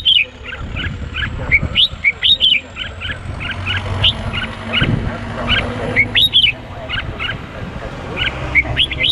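Red-whiskered bulbul calling, the male's call to a female: a quick run of short whistled chirps, several a second.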